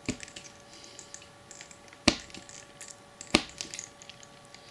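Scalpel blade cutting a chamfer into a small white plastic piece against a cutting mat: faint scraping with three sharp clicks, the two loudest about two and three and a half seconds in.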